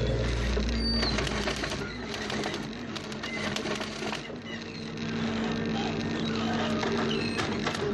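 A machine running with a steady hum and irregular sharp clicks and cracks over it; a bird chirps about a second in.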